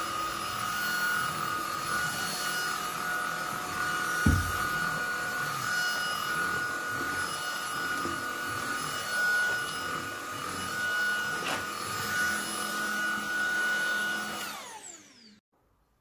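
Tineco A10 cordless stick vacuum running with a steady high whine, then switched off about a second and a half before the end, its motor whining down to silence. A single short thump about four seconds in.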